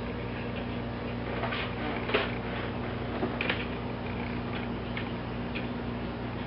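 Faint ticking of an 18th-century tall case clock's eight-day weight-driven movement, roughly one tick a second with two louder clicks in the middle, over a steady low electrical hum.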